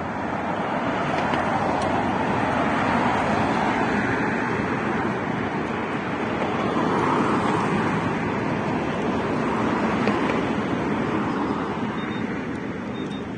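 Road traffic noise: a steady hiss of cars passing that swells and fades several times.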